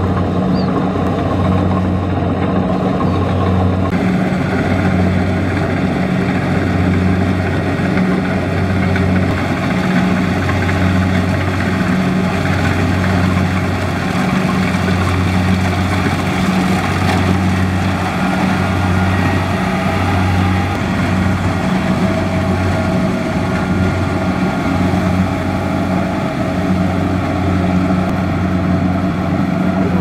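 Kubota DC70 Plus combine harvester running steadily while cutting and threshing rice, its diesel engine drone wavering slightly about once a second.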